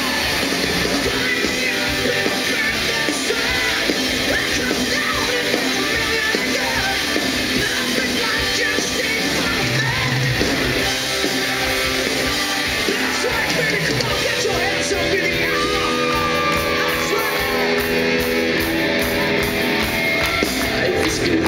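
Hard rock band playing live and loud: a singer over drums, bass guitar, electric guitar and keyboards.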